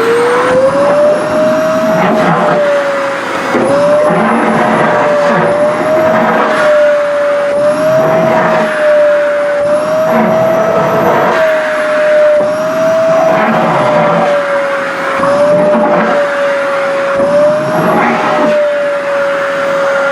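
SHARP EC-KP7F-A vacuum cleaner running, its motor whine settling to a steady pitch about a second in. The pitch dips and recovers slightly, with surges of rushing air about every two seconds, as the suction draws in the fabric of a flared skirt.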